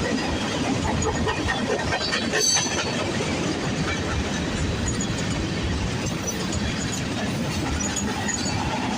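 Freight train cars rolling past: a steady rumble and clatter of steel wheels on rail, with a sharper clank about two and a half seconds in.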